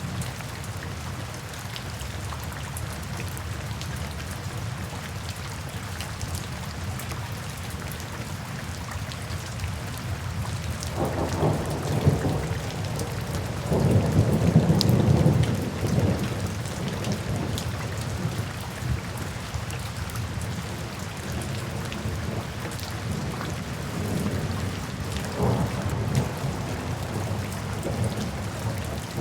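Steady rainfall with rumbles of thunder: a longer, louder roll of thunder builds a little before halfway through, and a fainter rumble comes near the end.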